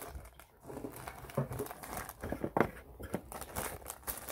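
Plastic rhinestone mesh sheet crinkling and crackling as it is handled and bent, with irregular sharp clicks.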